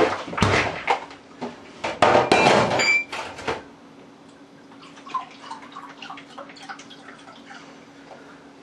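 A drink being made at a bar counter: liquid poured and bottles and glassware handled, with the loudest noise about two to three seconds in, then quieter clinks and taps over a steady low hum.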